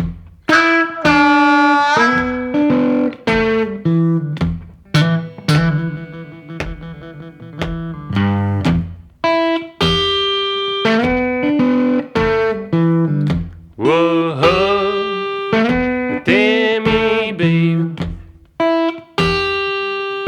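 Blues instrumental break on guitar: a repeating riff with bent notes, over sharp percussive hits.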